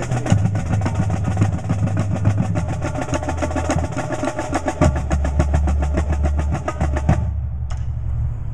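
Percussion ensemble playing a fast, dense run of evenly spaced drum strokes over a low bass line, ending together abruptly about seven seconds in.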